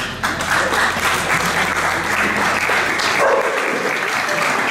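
An audience applauding: many hands clapping together in a steady patter that begins about a quarter second in.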